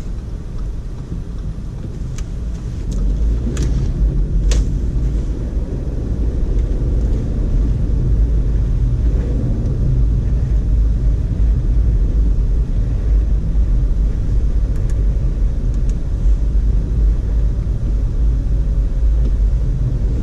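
Low, steady rumble of a 2012 Audi A4 Quattro driving through snow. The engine and tyre noise grows louder about three seconds in, with a few faint clicks early on.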